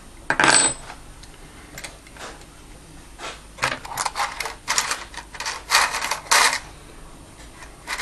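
Small metal lock-picking tools clinking, rattling and scraping in a string of short, irregular bursts, most of them between about three and a half and six and a half seconds in.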